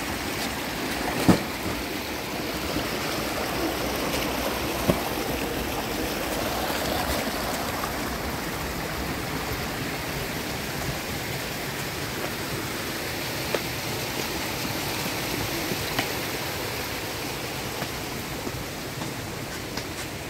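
Steady rush of running water, like a stream, with a few sharp clicks or knocks, the loudest about a second in and another about five seconds in.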